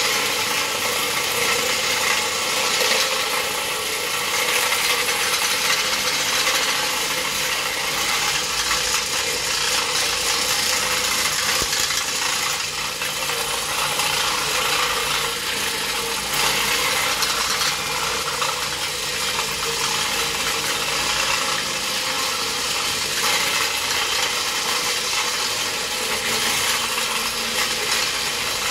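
Orbital floor machine running steadily, its pad scrubbing carpet in encapsulation cleaning.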